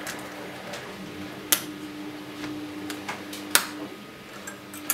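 Snap-together parts of a Znatok electronic construction kit being pressed onto the plastic base board and handled: two sharp snapping clicks, the first about a second and a half in and the second about two seconds later, with a few softer ticks and clatter between.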